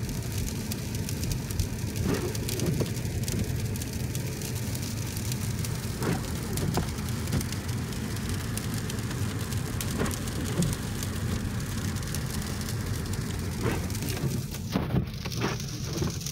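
Sleet pellets ticking steadily on the car's body and windshield, with a few louder ticks, over the car's steady low road rumble, heard from inside the cabin.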